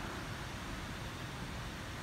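Steady rushing noise of water running through a concrete fish-hatchery raceway.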